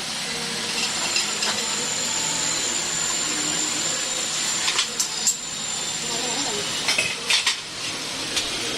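Metal parts or tools clinking against each other several times, in a cluster about five seconds in and again about seven seconds in, over a steady hiss with a faint high whine.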